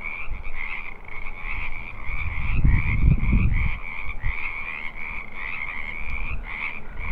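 A chorus of Pacific chorus frogs calling, many overlapping short croaks repeating over and over. A low rumble swells and fades a little over two seconds in.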